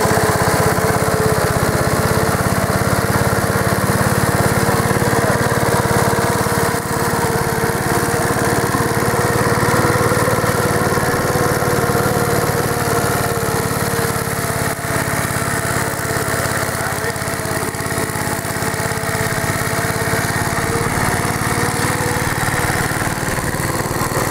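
The Clinton motor of a 1952 AirCaps Sit'n Cut riding lawnmower running steadily while mowing grass, with an even engine note throughout.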